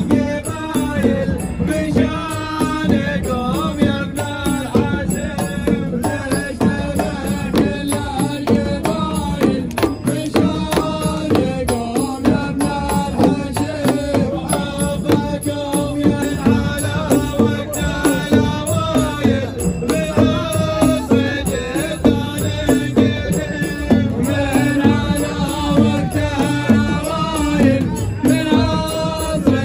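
Men's group chanting a Gulf Arab folk song to the beat of hand-held frame drums and a stick-struck drum, in a steady driving rhythm.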